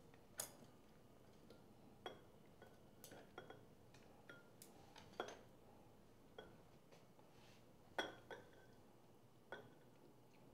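Serving utensils clinking and tapping against bowls as salad is divided into two bowls: about ten light, scattered knocks, some with a brief ring.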